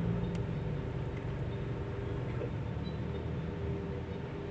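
Steady low rumble of an engine running, with a faint constant drone above it.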